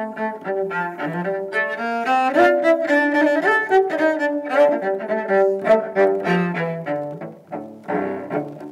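Cello played with a bow: a melody of short notes, each changing pitch within a fraction of a second. It grows quieter briefly about seven seconds in, then picks up again near the end.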